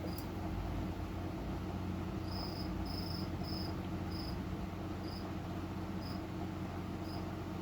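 1998 Windmere 52-inch ceiling fan running with a steady low motor hum. Short high chirps come roughly once a second through the second half.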